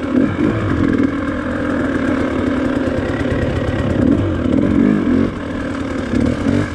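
Off-road dirt bike engine running at low to middling revs on a tight, narrow trail, the throttle rising and easing as the rider works along. The engine note drops back briefly about five seconds in.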